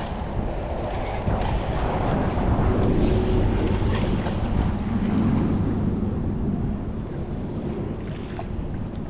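Wind rumbling on the microphone over open water, growing louder in the middle and easing off again.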